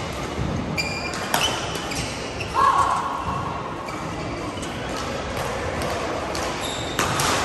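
Shuttlecock hit by badminton rackets with sharp cracks, and court shoes squeaking on the mat, in a large sports hall with play going on at neighbouring courts.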